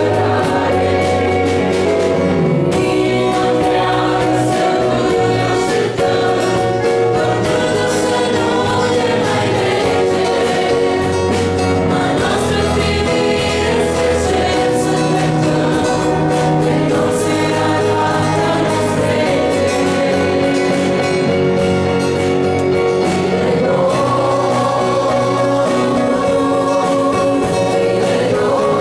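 A congregation of men and women singing a Romanian hymn together, held notes sustained at a steady level.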